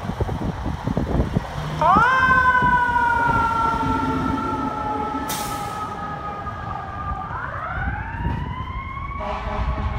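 Fire engine's diesel engine rumbling, then its siren winding up quickly and sliding slowly down in pitch, winding up a second time about seven seconds in. A short hiss comes about five seconds in, and a horn blast with several held tones begins near the end.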